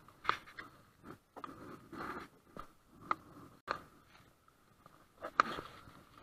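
Irregular sharp knocks and light scrapes on a canoe, about seven in all, some with a brief ringing after them, and short stretches of rubbing and rustling between.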